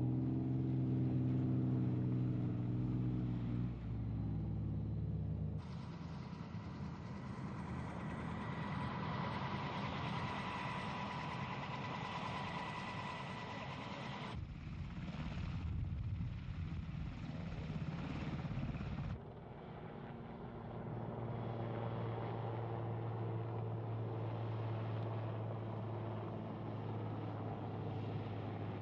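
Vehicle engines running with a steady low hum. The background changes abruptly several times, a few seconds in, about halfway through and again a little later, where one stretch carries a hissing noise with a thin steady tone.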